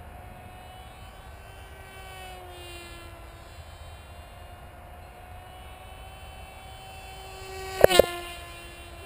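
Electric motor and propeller whine of a radio-controlled model aircraft, a steady high drone that drifts slightly in pitch. A little before the end it surges in two sharp, much louder bursts.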